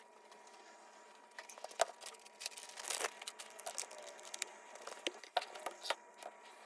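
Light clicks, taps and short rustles of small tools and objects being handled and set down on a work surface, thickest about three seconds in.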